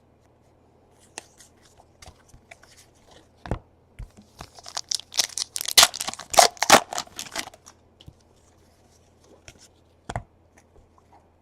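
A trading card pack's wrapper is torn open, with a burst of ripping and crinkling from about four and a half to seven and a half seconds in. Scattered light clicks and rustles of cards being handled come before and after.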